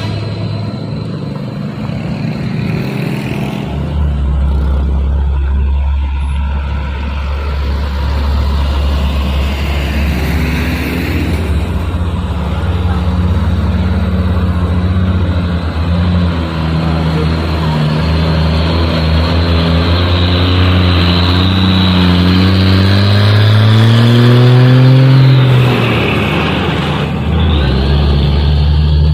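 Hino 500 truck's diesel engine pulling hard up a climb under load. Its pitch rises steadily for several seconds past the middle, drops sharply about three-quarters through, then settles back into a low, steady note.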